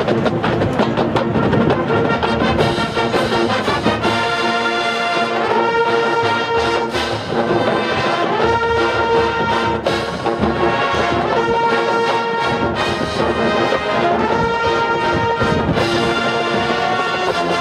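Marching band playing: the brass section holds sustained chords over drums, the chords moving about every second and a half with a drum hit at each change.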